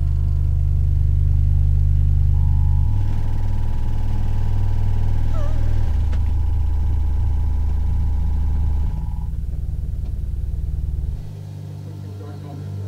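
Perlisten D215S subwoofer playing a film's deep bass build-up: a loud, steady rumble of low tones that steps down in pitch about every three seconds, sinking toward single-digit-hertz notes, with a thin steady higher tone over the middle. It falls off sharply about eleven seconds in.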